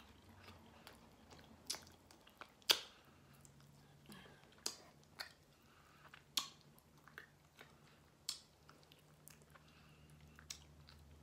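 A person eating barbecue ribs: chewing and wet lip smacks as sauce is licked off the fingers, in short sharp clicks every second or two.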